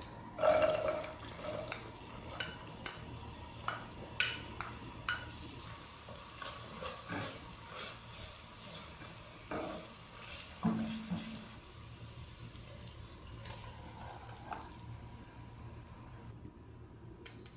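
Chopped onion tipped into hot olive oil in a granite-coated pot, hitting the oil loudest about half a second in. It then sizzles steadily while a wooden spoon stirs it, with scattered clicks and scrapes against the pot.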